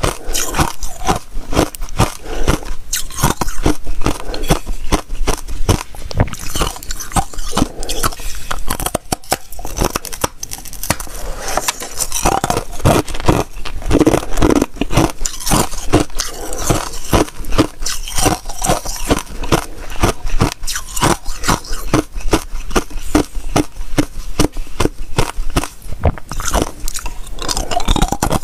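Thin ice sheets bitten and chewed close to a clip-on microphone: a dense, unbroken run of sharp crunches and cracks.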